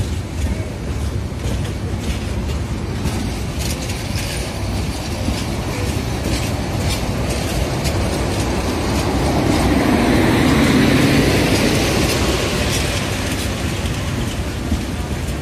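Bangladesh Railway intercity passenger train rolling slowly past, its wheels clicking over the rail joints under a steady rumble. The sound swells louder for a few seconds about ten seconds in, as the coach with the louvred power-car sides passes.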